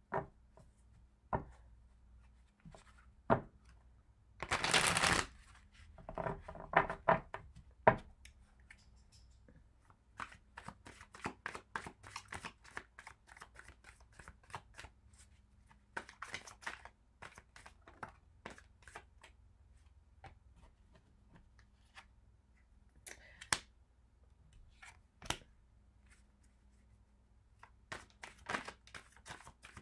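A deck of tarot cards being shuffled by hand: irregular flicks, taps and clusters of crisp card rustling, with a denser rush of card noise lasting about a second about four seconds in.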